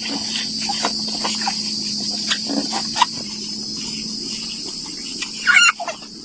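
Outdoor nature ambience: a steady high-pitched insect drone with scattered short chirps and clicks, over a steady low hum, and a louder chirping call near the end.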